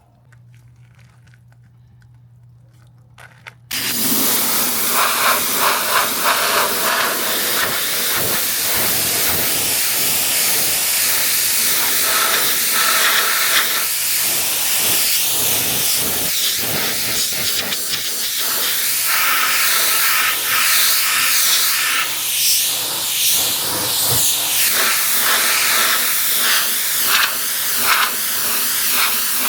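Pressure washer jet spraying water onto a car's bodywork: after a few seconds of only a faint low hum, the spray starts suddenly about four seconds in as a loud, steady hiss that shifts in tone as the jet moves across the car.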